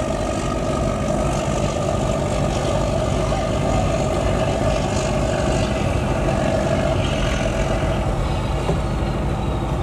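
Fishing vessel's Doosan 12-cylinder marine diesel engine running steadily, with the hull just off the slipway after launching.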